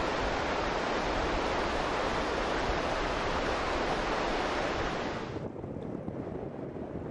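River rapids rushing steadily. About five seconds in it drops suddenly to a softer wash of water and wind.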